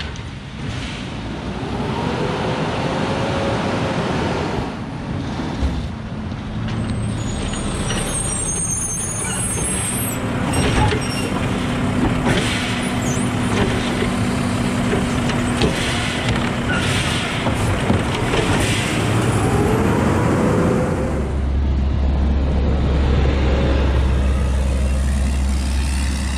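Automated side-loader garbage truck pulling up to the curb with its air brakes hissing. Its engine revs and the hydraulic arm whines steadily while it lifts and empties a wheeled trash cart with clanks and knocks. The truck then pulls away, and a car passes near the end.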